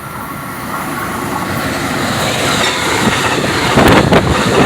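Amtrak passenger train approaching and passing close by: a rushing rumble that grows steadily louder, with a few sharp wheel knocks near the end.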